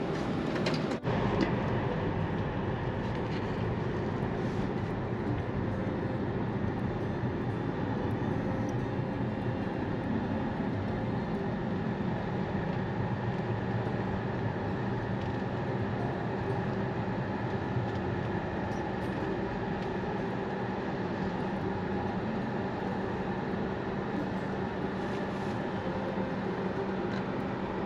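Steady road and engine noise heard from inside a car cabin while driving, with a single click about a second in.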